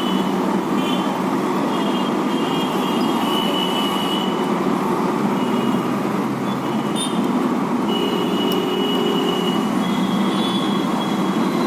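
Steady, loud background rumble with thin high-pitched squeals that come and go every second or two.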